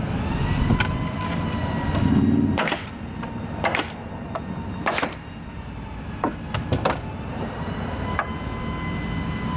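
Hand staple gun fastening wire mesh to a wooden frame: about eight sharp snaps at irregular intervals, over a steady humming tone.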